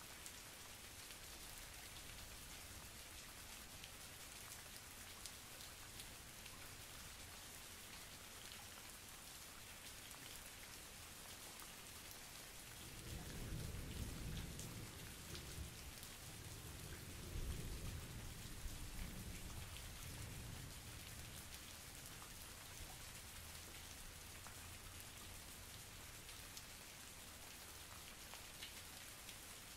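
Steady rain falling, with scattered drop ticks. About 13 seconds in, a low rumble of thunder builds, swells twice, and fades out over several seconds.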